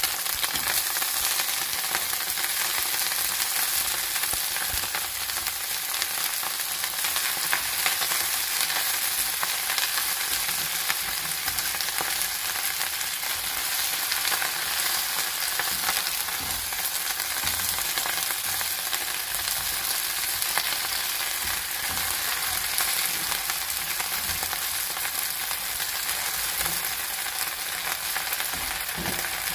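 Cime di rapa (turnip greens) frying in olive oil in a frying pan with a steady sizzle, stirred and turned with a wooden spoon.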